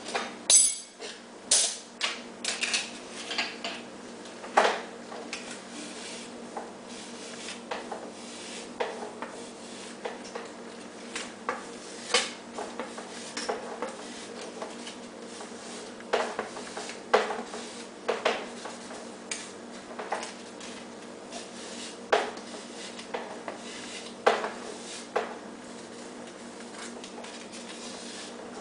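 Irregular scraping strokes and light clicks, one every second or two, as a hand tool works the edge of a foam-board model fuselage piece. A faint steady hum runs underneath.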